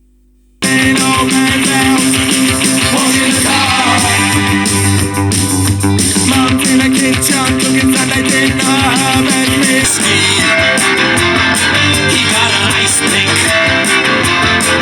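A recorded rock track with guitars starts abruptly just over half a second in, after a faint hum, and plays on at full level.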